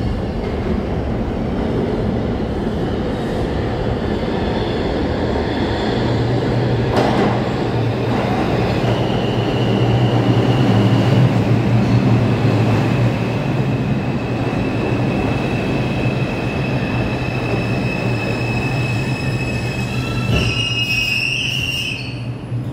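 R142 subway train pulling into the station and slowing to a stop: a steady rumble of wheels on rail that swells as the cars come alongside. A high steady squeal sets in about nine seconds in as it slows, and sharpens just before the train halts near the end.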